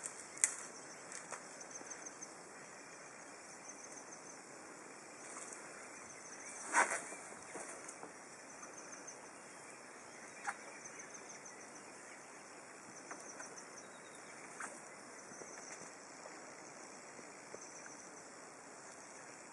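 Insects chirping in short, rapid pulsed trills against a steady background hiss, with a few sharp snaps, the loudest about seven seconds in.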